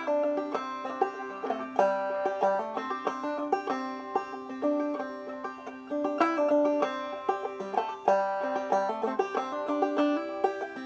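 Solo five-string banjo played clawhammer style: a steady, rhythmic old-time tune of crisp plucked notes over a droning string.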